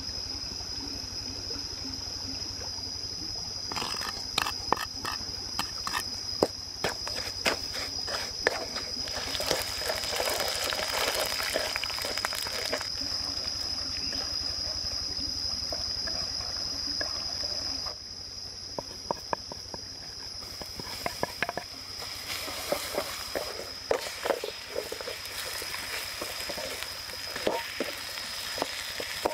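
Fish frying in oil in a steel wok over a wood fire, sizzling, while a wooden spatula scrapes and taps against the wok in irregular clicks. At first, oil trickles into the empty wok.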